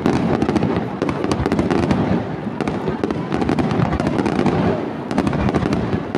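Aerial fireworks display: shells bursting in quick succession, a dense, unbroken stream of bangs and crackling.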